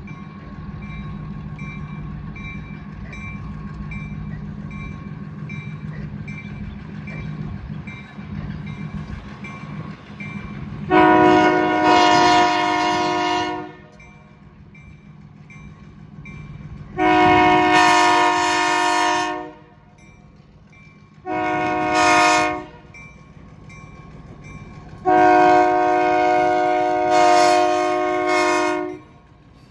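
Diesel locomotive's multi-tone air horn sounding the grade-crossing signal: two long blasts, a short one, then a final long one. A crossing bell rings steadily under a low engine drone.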